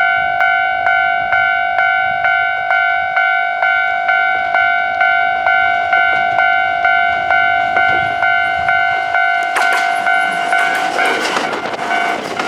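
Japanese level-crossing warning bell ringing steadily, about two strokes a second. From about ten seconds in, a Kintetsu 30000-series Vista EX train passes on the rails and its noise rises over the bell.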